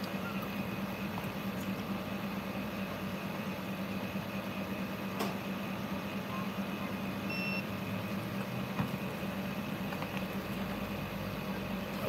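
Steady low mechanical hum with a faint click about five seconds in and a short high electronic beep a little past seven seconds.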